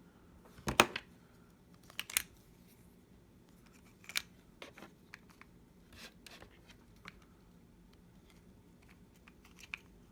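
Scattered clicks and light knocks from handling a small cordless precision screwdriver set and its parts. The two loudest come about one and two seconds in, with smaller ticks spread after them.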